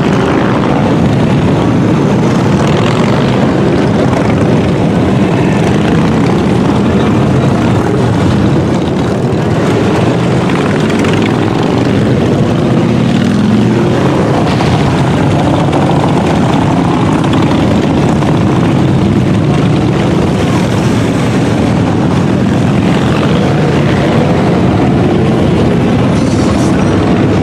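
A large pack of motorcycles riding by, many engines running together in a continuous loud drone, with single engines rising and falling in pitch as they pass.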